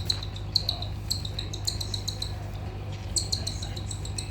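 Baby cockatiel chicks giving rapid, high, repeated begging chirps while being hand-fed, with a short pause about two-thirds of the way in, over a steady low hum.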